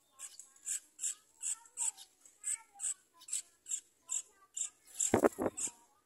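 Yellow-vented bulbul nestlings begging: a steady run of short, very high-pitched cheeps, about two a second. About five seconds in there is a brief, louder rustle.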